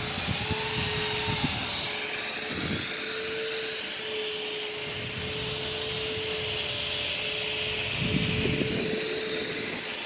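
A motor running steadily with a constant hum, with a few low rumbles on top near the start and near the end.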